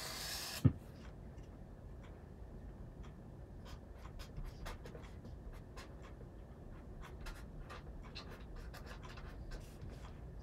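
Pen scratching on paper in short, irregular strokes while someone writes by hand. Near the start a brief rustle ends in a single thump.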